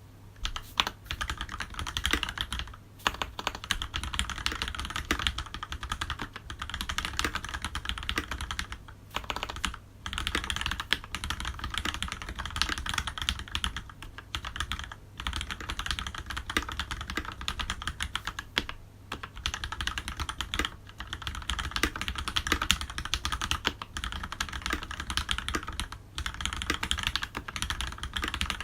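Continuous typing on a Leopold FC750R mechanical keyboard fitted with lubed Cherry MX Black linear switches and GMK doubleshot ABS keycaps: a dense stream of keystrokes, broken by a few brief pauses.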